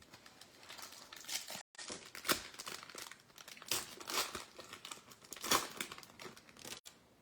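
A trading-card pack wrapper being torn open and crinkled, in irregular crackles with several louder rips.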